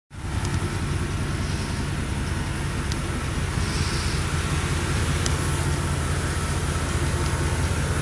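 1982 Chevrolet S10 pickup's engine idling steadily while warming up, a low, even exhaust note with no revving.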